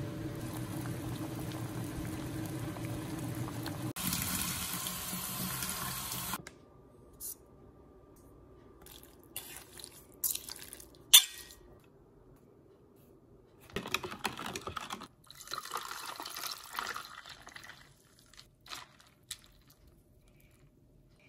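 Tapioca pearls bubbling in a pot of boiling water for about six seconds. Then a few sharp clicks of a spoon working the pearls, one of them a loud clack, and a few seconds of liquid being poured.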